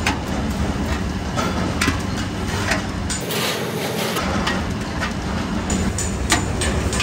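Metalworking shop noise: a steady machine hum with irregular knocks and clicks. For about a second, roughly three seconds in, the hum drops out and a hiss takes its place.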